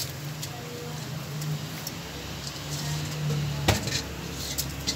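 Soaked rice being scraped by hand from a steel bowl into a pot of boiling water, over a steady low hum, with a few light clicks and one sharp metal knock a little after three and a half seconds in.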